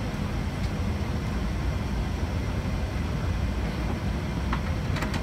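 Steady low rumble inside the cabin of an Airbus A380-800 rolling on the ground after landing: engine noise and wheel rumble coming through the airframe. A couple of faint clicks near the end.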